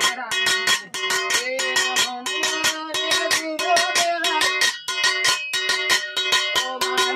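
Music played on a plucked string instrument: fast, even strokes about four or five a second over a steady held note.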